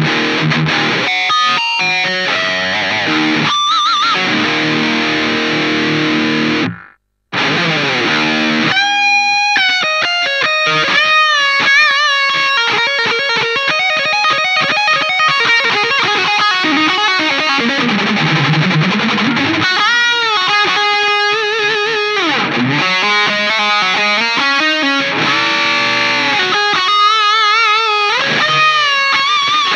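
Electric guitar played through a Mooer GE150 Pro multi-effects processor on a distorted lead tone: single-note lines with string bends, vibrato and fast runs. The sound cuts out for a moment about seven seconds in.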